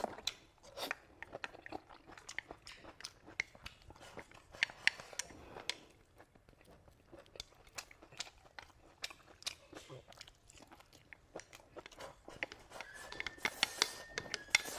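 A person eating: irregular crunching, biting and chewing of food, close to the microphone. Near the end a steady high-pitched tone comes in and holds.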